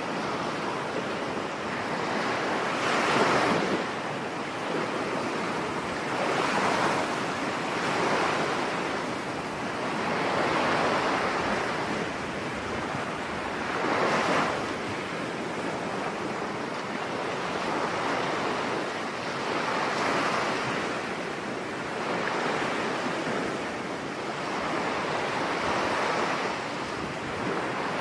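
Sea waves washing in as a continuous rush of surf that swells and eases every few seconds.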